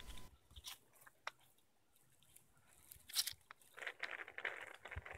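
Faint handling noises: scattered small clicks, a short scrape about three seconds in, and a soft rustle near the end.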